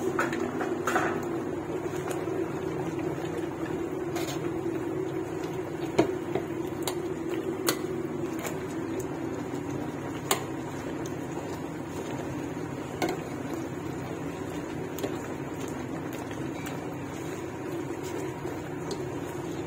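A slotted metal spatula knocking and scraping against a large metal pot now and then while torn flatbread is stirred into a stew, over a steady low hum.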